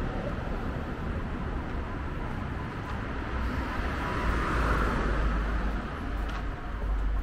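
Urban background of vehicle noise: a steady low rumble that swells and fades about four to five seconds in.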